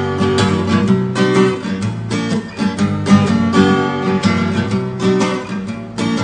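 Acoustic guitar strummed in a steady rhythm, chords ringing through an instrumental passage of a song.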